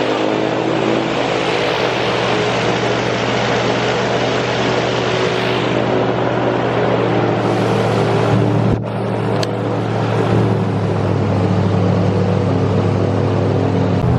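Airboat's engine and propeller running steadily at speed under a loud rush of wind and water. The rush eases a little partway through, with a brief dip just under nine seconds in.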